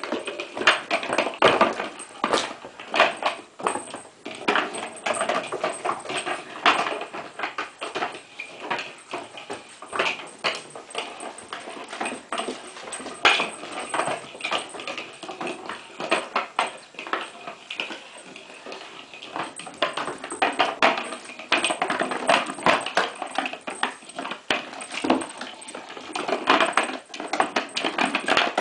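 Puppy playing with a hard plastic toy on a hardwood floor: rapid, irregular clattering and knocking as the toy is pushed and batted about, mixed with claws clicking on the boards.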